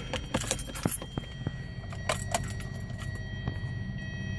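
Keys on the ring jangling and the ignition key clicking as it is turned in a 2012 Hyundai Sonata GLS to start the car, over a low steady hum that grows slightly stronger near the end.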